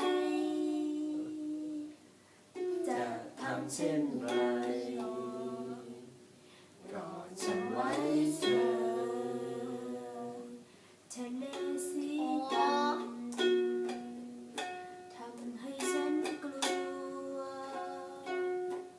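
A song: a voice singing long, sliding notes in phrases over a plucked string instrument, with short pauses between phrases.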